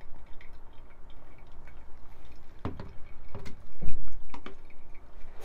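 Pour-over coffee dripping through a paper filter into a glass carafe, faint scattered drips. A few knocks come in the second half as the gooseneck kettle is set back on its base, the loudest, with a low thump, near the end.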